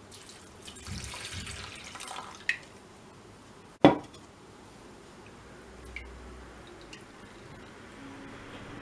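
Water poured onto raisins in a stainless steel pot, splashing for about two seconds. A sharp click follows a second or so later and is the loudest sound, then a few light ticks.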